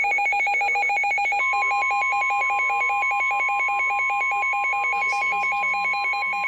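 Weather radio alert tones: a rapid electronic warble of two alternating pitches, many beats a second. About a second and a half in, NOAA Weather Radio's long steady warning-alarm tone joins it, the signal that a warning is about to be broadcast. The warble stops just before the end while the steady tone carries on.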